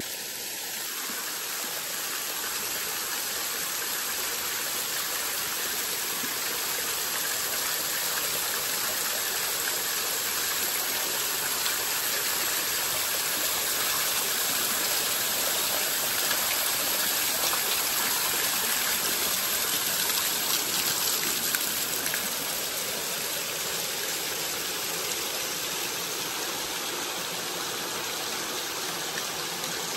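Steady rush of water falling in a river cascade.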